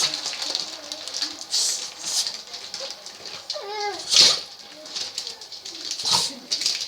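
A French bulldog in a sneezing fit: several sharp sneezes, the loudest a little past the middle and another near the end. A short pitched sound that falls then rises comes just before the loudest sneeze.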